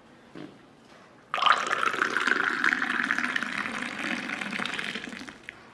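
A hot drink poured into a glass tumbler, splashing as it fills and froths up. The pour starts about a second and a half in, runs steadily and tails off just before the end.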